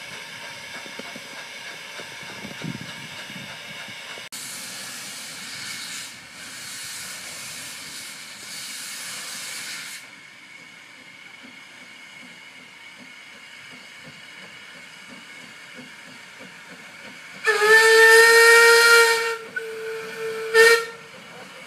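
Narrow-gauge steam locomotive letting off steam with a hiss for about six seconds, and later sounding its whistle: one long blast, loud and then quieter, followed by a short toot near the end.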